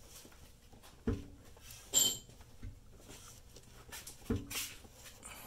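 A pry bar working the engine's crankshaft fore and aft at its front snout to check end play: two dull metal clunks about three seconds apart, with a ringing metal clink between them. The thrust bearing is wiped out, leaving about 23 thousandths of end play.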